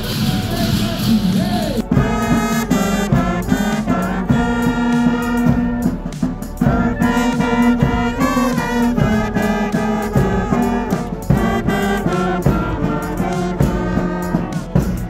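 Brass band of trumpets, euphoniums, saxophones and clarinets playing a tune. The band comes in about two seconds in, over the noise of a crowd.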